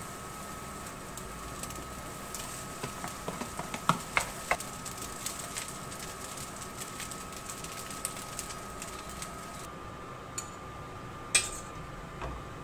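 Plastic spatula scraping and tapping in a nonstick frying pan as rice is stirred into the fried rice, with a run of clicks and knocks about three to five seconds in and one sharp knock near the end. A faint steady high hum runs underneath.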